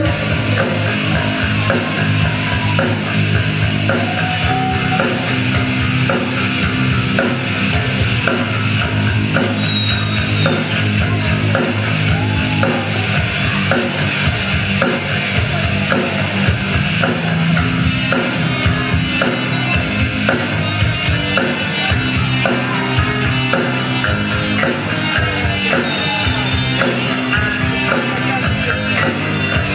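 Rock band playing an instrumental passage: drum kit keeping a steady beat under electric guitar.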